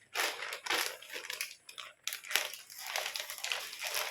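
Packaging crinkling and rustling in short, irregular bursts as a parcel is handled and opened.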